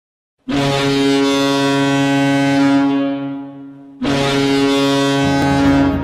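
University of New Hampshire's ice hockey arena goal horn sounding two long, steady blasts: the first starts about half a second in and fades away after about two and a half seconds, the second starts about four seconds in. Pep band music comes in under the second blast near the end.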